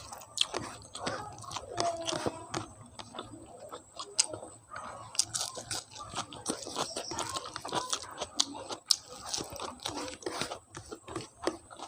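A person chewing and biting mouthfuls of food close to the microphone, with many irregular wet clicks and crunches.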